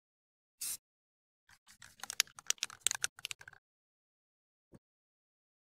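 A short burst of aerosol spray paint hissing from a rattle can about half a second in, followed by about two seconds of rapid, irregular clicking and rattling.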